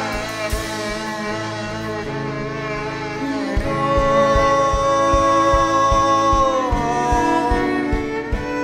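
Live band playing an instrumental passage: long held notes that shift in pitch about seven seconds in, over a steady drum beat.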